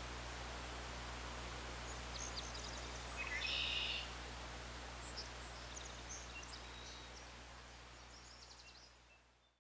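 Outdoor ambience with birds chirping and calling several times, the loudest call about three and a half seconds in, over a steady low background. The sound fades out to silence near the end.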